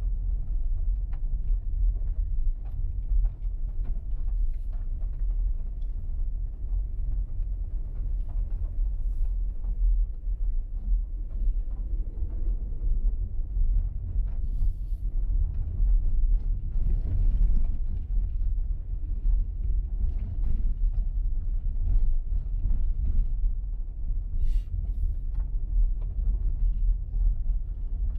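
A car driving on an unsealed dirt road: steady low rumble of the tyres and engine, with scattered small clicks and knocks.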